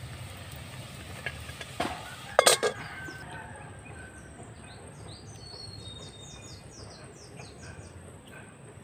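Birds chirping outdoors, a run of short falling chirps from about three seconds in over a steady high-pitched hum. Just before, two sharp knocks, the louder about two and a half seconds in.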